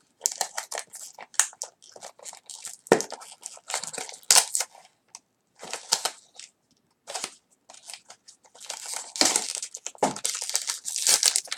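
Blind-box toy packaging being torn open and crumpled by hand: irregular crackling and rustling, with a pause of about a second partway through, then denser crinkling.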